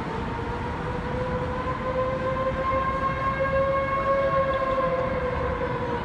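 Outdoor civil-defense warning sirens wailing across the city, one slow tone that swells and rises slightly in pitch through the middle, then eases back down, over steady background noise. The sirens were falsely activated by a hack of the warning system, with no storm present.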